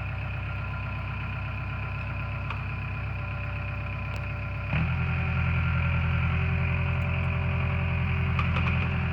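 Excavator's diesel engine running steadily, then stepping up to a louder, harder-working note a little past halfway as the machine begins pushing the cut tree over.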